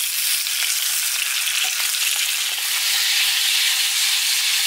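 Halved boiled eggs frying in hot oil in a pan, with a steady sizzle and faint ticks as the pan is shaken. The sizzle grows a little louder about three seconds in.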